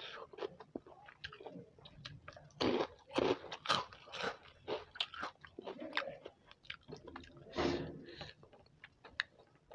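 Crisp fried papad crunching and being chewed close to the microphone, in irregular crackly bites. The loudest crunches come in a cluster about three seconds in and again about two seconds before the end.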